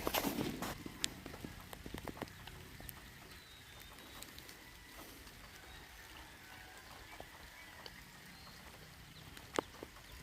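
Light rain falling: a low, steady hiss with scattered drops ticking and dripping close by. There are a few louder knocks in the first second and one sharp drip-like click near the end.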